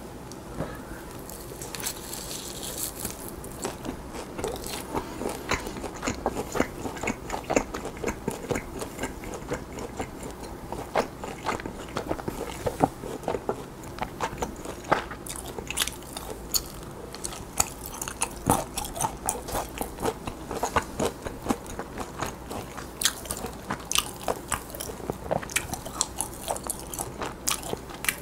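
Close-miked biting and chewing of roasted lamb leg meat: a steady run of sharp, wet mouth clicks and smacks.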